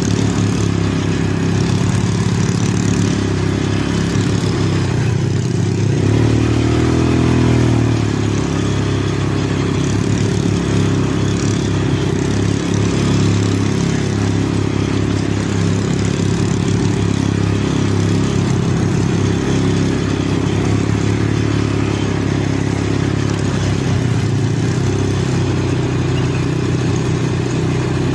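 ATV (quad bike) engine running steadily while riding along a dirt trail, heard close up from the handlebars. The engine note shifts briefly about seven seconds in.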